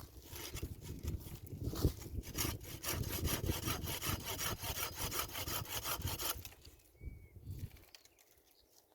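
Hand saw cutting through wood in a run of quick, rasping strokes that stops abruptly a little past the middle.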